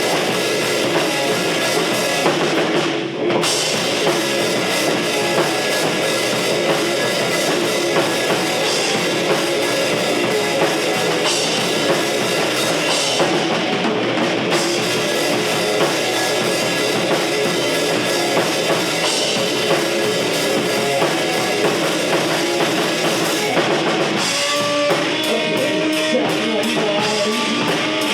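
A rock band playing: drum kit and guitar together, with a brief break about three seconds in. Near the end the drumming thins out and picked guitar notes come to the fore.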